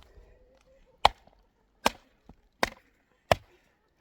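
Four sharp blows of a tool striking wood, about one every 0.8 seconds, like wood being chopped.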